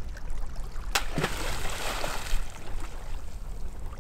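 A large chunk of glacial ice, thrown into shallow sea water, lands about a second in with a sharp smack and a splash that lasts about a second and a half. The chunk breaks into pieces.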